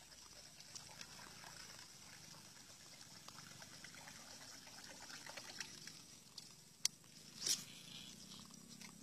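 Handmade jump-frog lure being twitched across a river surface and reeled in: faint small splashes and ticks over a low steady whir, with a sharp click about two thirds of the way through and a brighter splash just after.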